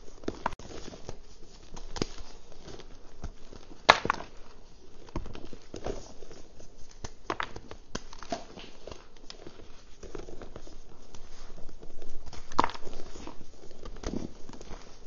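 Reformed gym chalk being crushed and crumbled by hand: dry, crunchy crackling with powder sifting down, in irregular squeezes. A sharp snap stands out about four seconds in, and another about three-quarters through.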